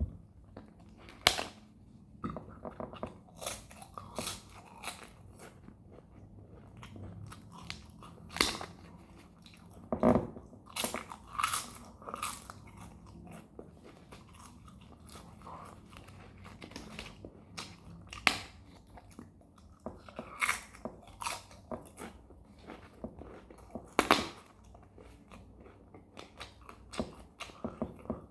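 Close-miked ASMR crunching and chewing of a dried fish snack: irregular crisp bites, with softer chewing in between.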